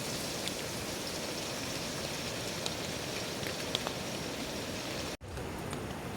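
Heavy rain falling steadily, with scattered drip ticks. The sound drops out for an instant about five seconds in.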